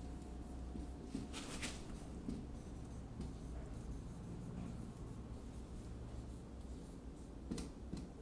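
Marker pen writing on a whiteboard: faint scratching strokes, loudest about a second and a half in and again near the end, over a low steady hum.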